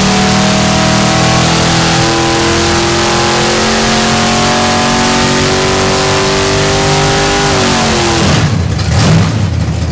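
Stroked 498-cubic-inch Ford 427 FE top-oiler V8 with dual four-barrel carburetors running hard on an engine dyno. About seven and a half seconds in the revs fall away sharply, followed by a loud rough stretch as the engine comes down.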